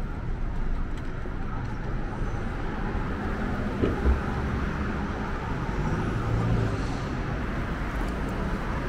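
City street traffic: the steady hum and rumble of passing road vehicles, with a short low thump about four seconds in.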